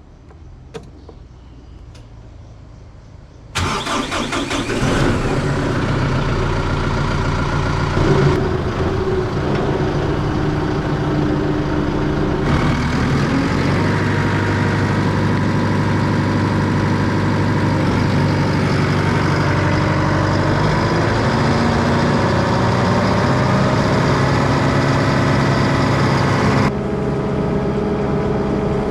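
Farm tractor engine starting about three and a half seconds in after a short cranking burst, then running steadily, its pitch shifting a few times as the revs change.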